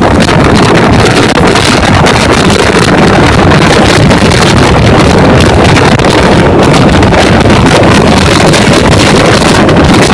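Loud, steady rush of wind buffeting the microphone over the rumble of a train running at high speed.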